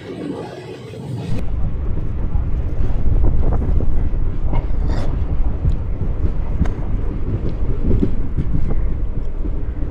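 Wind buffeting the microphone over the low rumble of a moving passenger train, with scattered light clicks; it starts abruptly about a second in.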